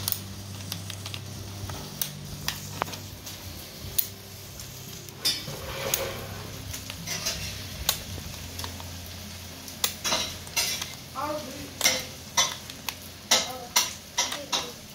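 Servo motor whirring as it drives the 3D-printed plastic gears and cams of a mechanical seven-segment clock, with the plastic segments clicking and clattering as they flip to change the digits. The clicks come in quick runs, thickest in the last few seconds.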